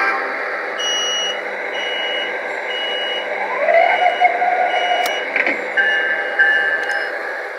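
Repeated electronic beeping, about one beep a second, from the Lionel Metro-North model train's onboard sound system while the train is stopped with its doors open, over a steady electrical hum.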